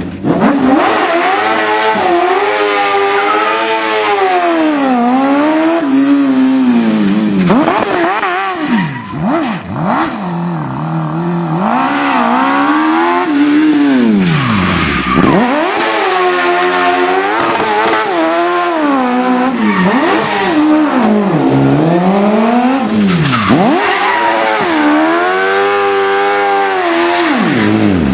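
Smart car powered by a Suzuki Hayabusa inline-four motorcycle engine being driven hard, the engine revving up and falling back again and again as the throttle is worked.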